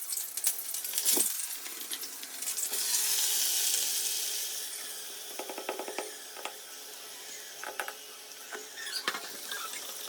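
Fish roe and brinjal pieces sizzling as they fry in oil in a pan, the sizzle swelling for a couple of seconds and then settling, with a spatula clicking and scraping against the pan now and then.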